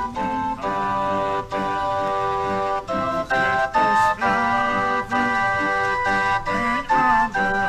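Small portable barrel organ with a front row of pipes playing a tune: held chords of several organ notes at once, moving to new notes about every second, with short breaks between them.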